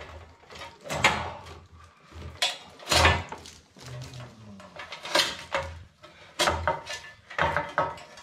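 Bundles of old electrical cable and earth wires being pulled and untwisted by gloved hands in a crowded switch box: irregular rustling with sudden knocks and clatter.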